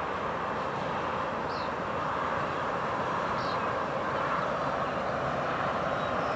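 Approaching freight train's lead GE diesel locomotives, an NS AC44C6M and a BNSF ES44C4, running with a steady rushing engine noise that holds at an even level.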